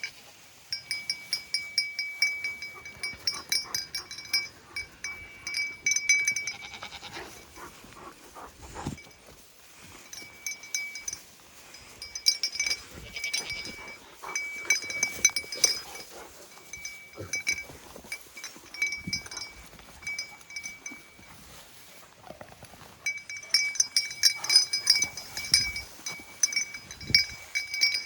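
A small metal bell jingling in irregular bouts, with a steady ringing note and rapid clinks, likely as a dog moves about. It is quieter between about 8 and 12 seconds and near 20 to 22 seconds.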